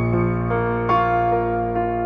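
Soft background piano music: sustained chords with new notes coming in about every half second.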